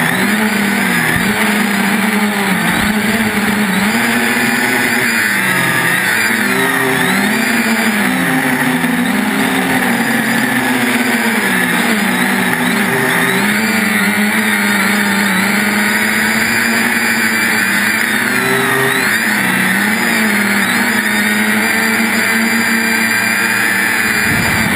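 3DR Iris+ quadcopter's four brushless motors and propellers buzzing in flight, their pitch repeatedly swooping up and down as the throttle changes.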